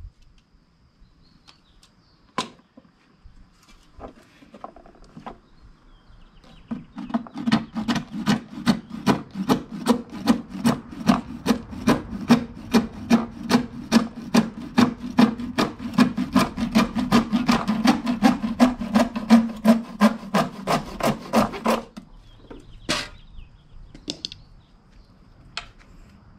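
Hand saw cutting through 2-inch PVC pipe: a steady run of sawing strokes, about three a second, starting about seven seconds in and lasting some fifteen seconds, followed by a few sharp knocks.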